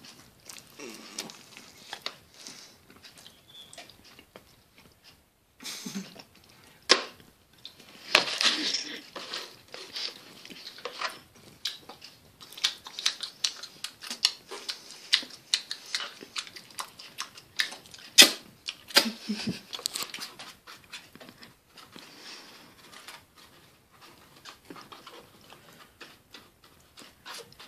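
Snarling, grunting animal-like vocal noises and wet mouth smacking from a person hamming up messy eating, broken by many sharp clicks and knocks.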